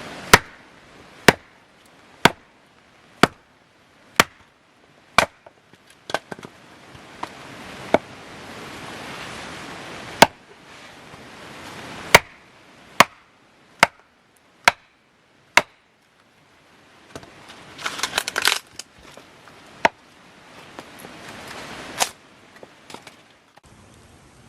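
Firewood being chopped: a string of sharp blows, mostly about one a second with a few pauses, and a burst of rapid cracking a little past the middle. A soft hiss of rain lies between the blows.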